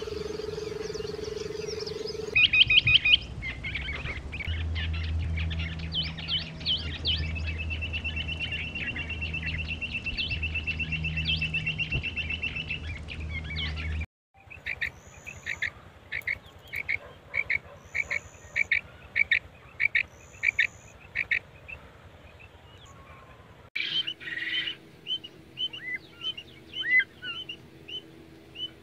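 Quail calling across several separate recordings: first rapid high trills and a long trill, then a string of short, evenly spaced whistled notes, and near the end softer chirps from penned female quail.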